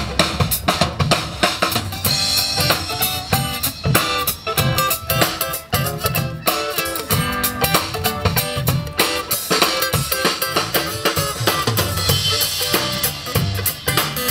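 Live country band playing the instrumental intro of a song, with a drum kit keeping a steady beat under bass and guitars.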